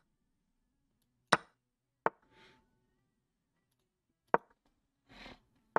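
Online chess move sounds: four short sharp wooden clicks as pieces are moved and captured on the board, with two faint soft puffs of noise between them.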